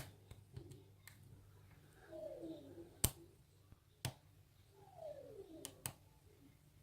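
Lock picking on an Abus 54T1/50 padlock: about five sharp clicks of the pick and tension wrench against the lock's pins and keyway, irregularly spaced, with two faint scrapes of falling pitch as the pick is dragged through the keyway.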